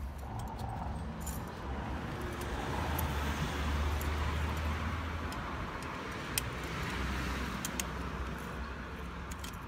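Scattered light metallic clicks and scrapes of a screwdriver working the pins out of a Honda Spacy scooter's centrifugal clutch shoe assembly, over a steady low rumble of road traffic.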